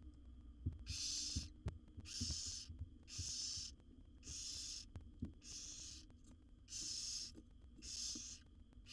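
Barn owl nestlings giving hissing, rasping begging calls, a run of about seven bursts at roughly one a second. Scattered low knocks sound in the first half.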